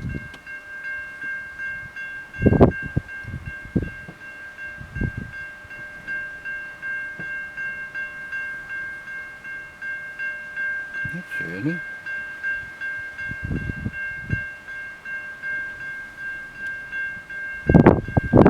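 A railway level-crossing warning bell rings steadily as a freight train approaches, with a few low thumps along the way. A loud rush of train noise comes in near the end as the train arrives.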